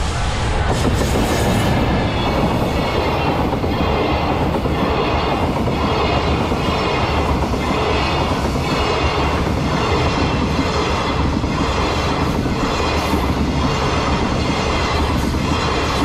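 JR Freight EF210 electric locomotive and its train of rail-carrying Chiki flatcars passing at close range, the wheels rumbling and clacking over the track with a regular beat about once a second.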